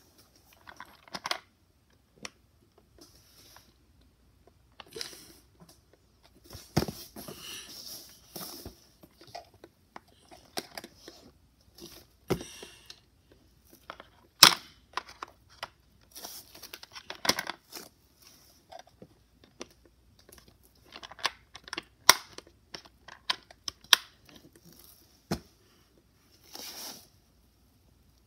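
Handling noise from plastic toys being moved about close to the microphone: scattered clicks and taps with short rustles, separated by quiet gaps, and a few sharper clicks in the second half.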